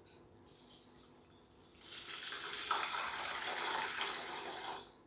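Water poured from a glass jug into a pot of soaked green gram, splashing onto the beans. It starts with a brief trickle, grows into a fuller, steady pour about two seconds in, and stops abruptly just before the end.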